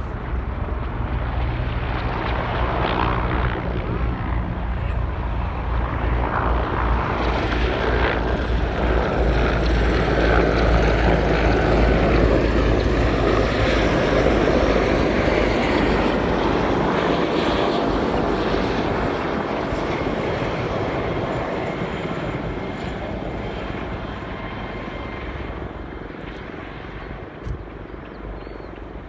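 Helicopter rotor and turbine noise, with a beating rotor thump, growing louder up to about halfway and then fading away.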